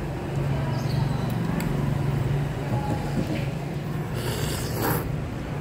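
A steady low hum, and a person slurping thick lomi noodles briefly about four seconds in.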